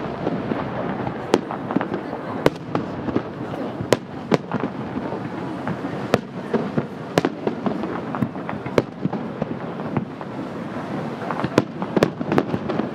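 Aerial firework shells bursting overhead: a run of sharp bangs at irregular intervals, one to three a second, over a continuous rumble.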